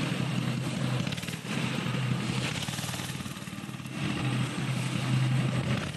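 Small 90cc petrol engine of a kids' go-kart running as the kart drives along, getting louder about four seconds in.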